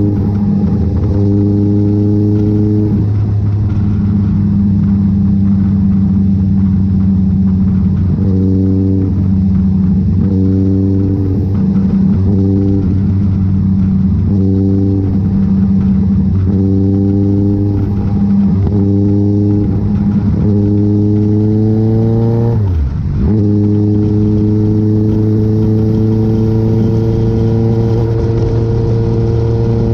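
Motor vehicle engines running: a steady low engine note throughout, with a higher engine note that climbs and breaks off every second or two, as in repeated revving or gear changes. About 23 seconds in there is one bigger climb that drops away sharply.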